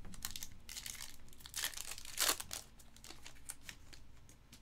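Foil wrapper of a trading-card pack being torn open and crinkled, with the loudest crackles about one and a half and two seconds in, then lighter crinkling.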